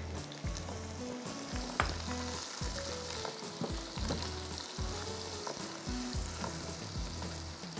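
Sliced red onions sizzling in hot oil as they are stirred to soften them, with occasional scrapes and knocks of the spatula against the pan.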